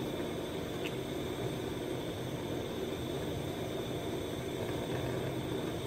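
Steady whirring hiss with a low hum underneath, even throughout, with no distinct clicks or knocks; the pour of oil into the pan makes no sound that stands out.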